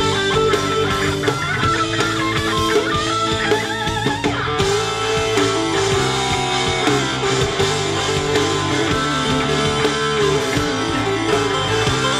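A live rock band playing, with electric guitars to the fore over bass, drums and keyboard. A bending lead line stands out in the first few seconds, and the music grows denser about four and a half seconds in.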